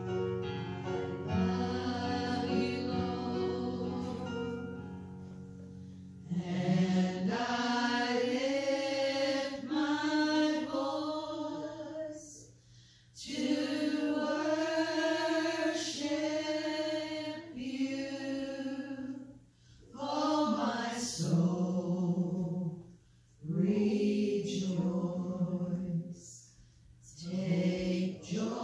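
Slow gospel worship song: a sustained instrument chord rings for the first few seconds, then singing comes in about six seconds in, in long held phrases with short pauses between them.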